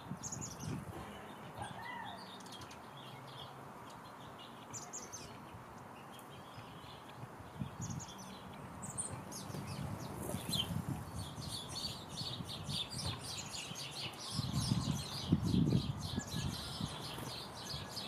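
Small birds chirping, with scattered high calls that build into a busier run of chirping in the second half. Near the end come dull low knocks in clusters, a woodpecker pecking at a hanging seed cake.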